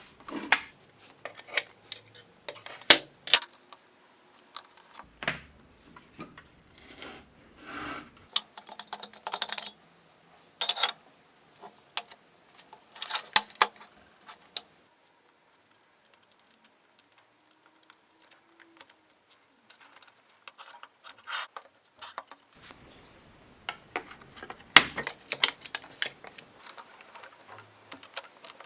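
Small hard objects being handled: irregular clicks, taps and clatters, with a quieter stretch in the middle.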